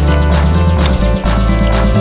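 Background music with a steady beat and sustained bass notes, with a brief dip a little past the middle.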